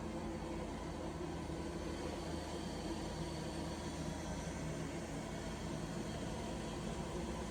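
Robot vacuum cleaner running, a steady motor and suction-fan hum with several constant tones.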